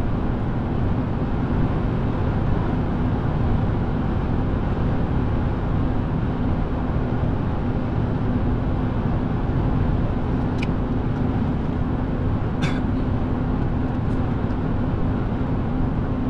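Steady road noise of a car driving at speed: an even rumble of tyres and engine with a low steady hum. There are a few faint clicks about ten, twelve and fourteen seconds in.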